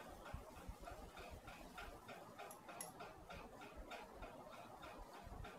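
Near silence: faint room tone with a faint, regular ticking, about four ticks a second.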